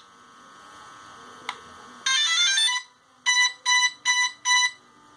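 A DJI Phantom drone powering up at the press of its button. It plays a quick rising start-up chime of stepped notes, then four even beeps. This is the normal start-up sound now that the continuous error beeping from its crash-damaged IMU has been cured by resoldering.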